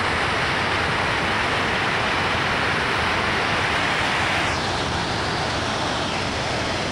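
Water rushing steadily over a low dam spillway, a constant wash of white-water noise whose hiss eases slightly about four and a half seconds in.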